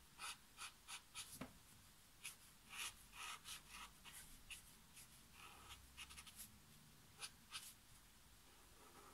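Soft brush tip of an Ecoline watercolour brush pen stroking across rough cotton watercolour paper: a quick, irregular series of faint, short scratchy strokes.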